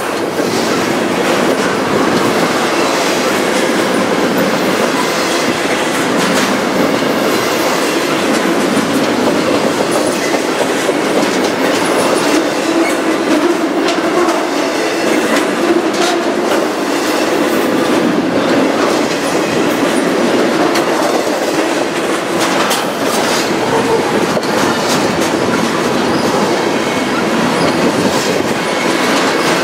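Double-stack intermodal freight cars rolling past, steel wheels clattering over the rail joints in an irregular clickety-clack over a steady rumble.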